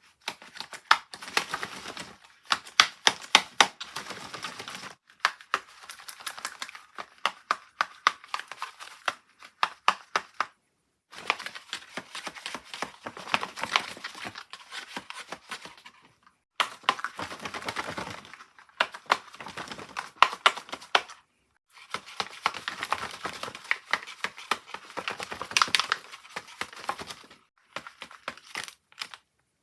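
Folded paper dragon puppets snapping their paper jaws: quick clacking clicks over a papery crinkle. The clacking comes in about seven runs of a few seconds each, with short pauses between them.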